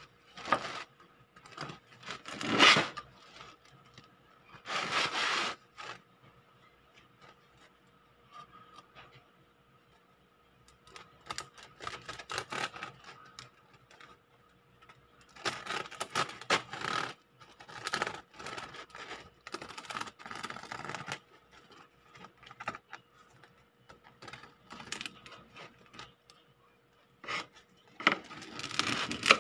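Serrated bread knife sawing through a crusty sourdough loaf on a wooden cutting board: bouts of rasping, crackling strokes as the blade cuts the crunchy crust, with short pauses between.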